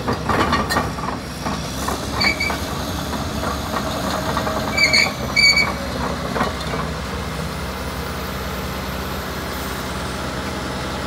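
Caterpillar D5M LGP bulldozer's diesel engine running steadily, with a few metallic clanks in the first couple of seconds and short high squeaks near the middle.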